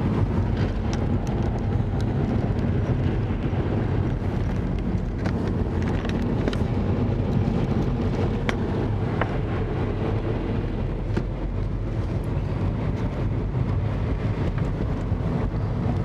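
Car engine running, a steady low rumble, with scattered light ticks over it.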